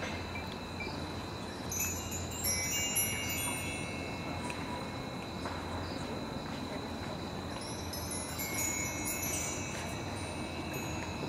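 Metal chimes tinkling: several high ringing tones overlapping and fading, in a cluster about two seconds in and again about eight seconds in, over a steady thin high tone.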